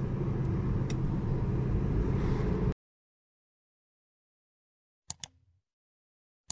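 Steady low road and engine rumble heard from inside a moving car, cutting off abruptly about two and a half seconds in. After a stretch of silence, two quick mouse-style clicks come close together near the end.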